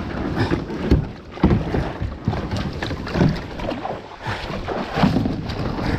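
Irregular knocks and bumps against a kayak, with rustling, as a freshly caught bass is handled aboard.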